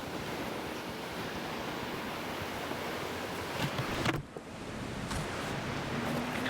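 Ocean surf with wind on the microphone: a steady rushing noise, broken by a couple of knocks and a sudden brief drop about four seconds in.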